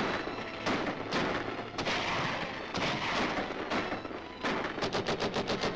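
Staged battle sound effects on an old film soundtrack: cannon blasts and gunshots, one larger explosion about two seconds in, then a rapid burst of shots near the end.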